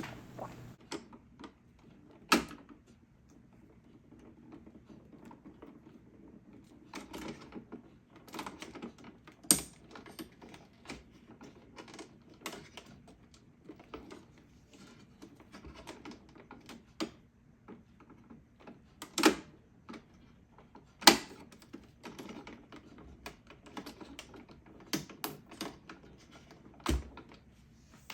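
Screwdriver and plastic parts clicking and knocking as rubber water lines are worked off a Keurig coffee maker's water valve. The clicks are irregular, with about five louder clacks spread through.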